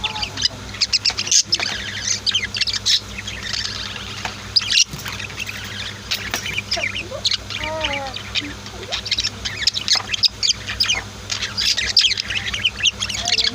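Budgies and lovebirds chirping and chattering in quick, continuous high notes, with a few lower rising-and-falling calls about halfway through.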